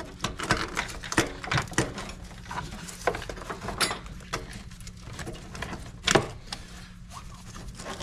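Scattered clunks, scrapes and rattles of a starter motor being worked up and out of a crowded engine bay past wiring and brackets, with a sharper knock about six seconds in.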